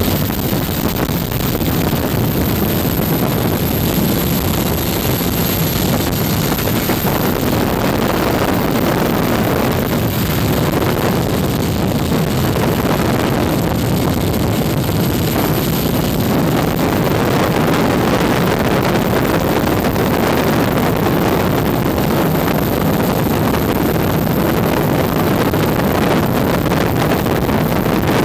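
Steady engine and wind noise on a camera mounted outside a helicopter, with wind buffeting the microphone and a faint high whine. It stays even throughout.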